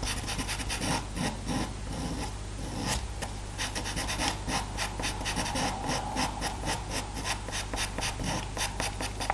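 Faber-Castell Pitt pastel pencil scratching across Pastelmat card in quick, short, repeated strokes, several a second, as fur is laid down in a base layer.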